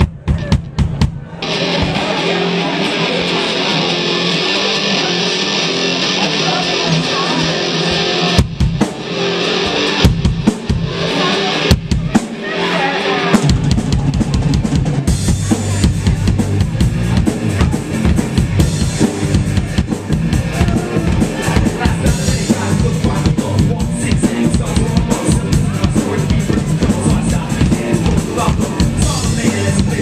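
Live rock band playing on electric guitar, electric bass and drum kit. The opening is sparse, a bright sustained wash with a few drum hits; about 13 seconds in the drums and bass come in fully and the whole band plays on at a steady, loud level.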